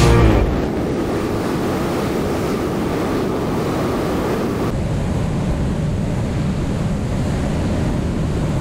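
Steady rush of airflow and wind on the microphone of a camera mounted on a Kitfox light aircraft's wing in flight, its hiss easing slightly about five seconds in.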